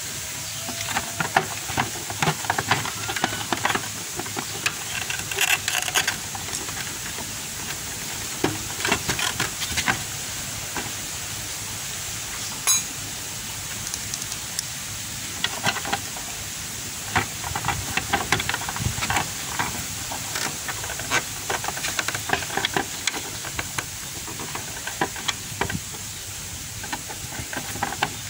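Hands fitting a motorcycle's plastic side cover and driving its screw with a screwdriver: clusters of sharp clicks and scrapes over a steady hiss.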